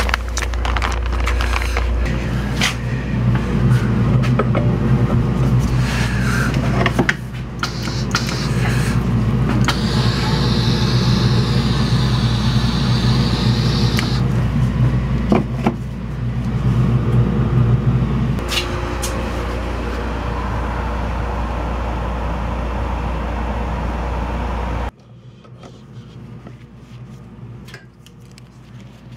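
Steady drone of a dust collection fan, with the air hiss of a powder coating gun spraying for a few seconds around the middle and a few light clicks. The drone drops away suddenly near the end.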